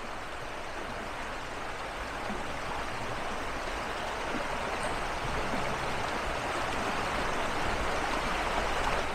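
Shallow woodland brook flowing over stones: a steady rush of running water that grows a little louder toward the end.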